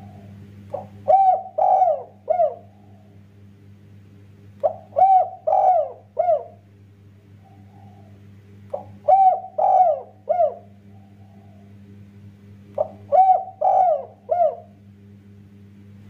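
Spotted dove (tekukur) cooing: four phrases about four seconds apart, each a short lead note followed by three quick, falling coos. A steady low hum runs underneath.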